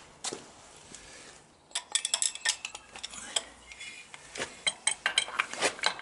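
Steel tools clinking and clicking against the clutch of a Yamaha XS650 engine as a socket wrench is fitted to the clutch centre nut. One click comes near the start, then a quick, irregular run of sharp metallic clinks from about two seconds in.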